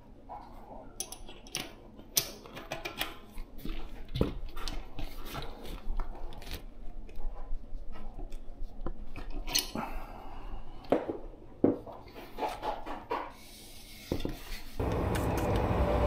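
Small metal clicks and clinks of tools and parts as a brake disc rotor is fitted back onto the bicycle wheel hub. Near the end a steady, louder rushing noise starts.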